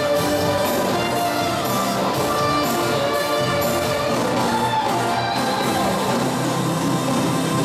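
Live band music amplified in a concert hall: sustained chords over a steady beat of about two cymbal strokes a second.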